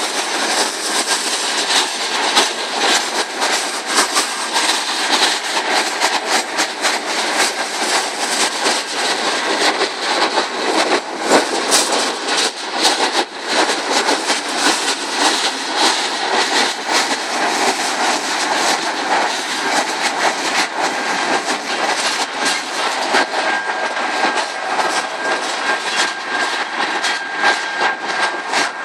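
CSX freight train's cars rolling past at speed, steel wheels clicking rapidly over the rail joints in a steady rumble, with a thin high squeal coming and going near the start and again near the end.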